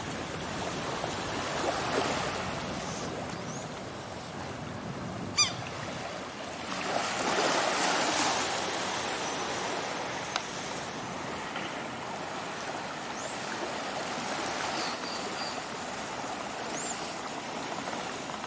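Calm bay water lapping gently at the shore, a steady hiss that swells a little twice, with a few short, high bird chirps. A single sharp click about five seconds in.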